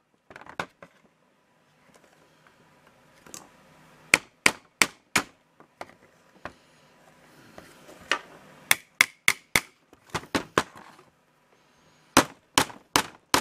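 Hammer tapping a small pin into an airsoft M4 receiver above the trigger: sharp taps in quick runs of four or five, with pauses between. The pin is not lining up straight and is slow to go in.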